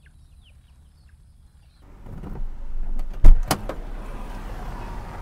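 A few faint, short falling bird chirps. About two seconds in, car noise starts up suddenly, with a very loud sharp knock and a second one just after, then steady car noise.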